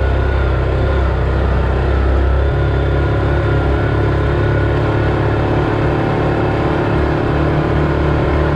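Motor vehicle engine running steadily while driving, heard from on board; its low drone changes pitch about two and a half seconds in.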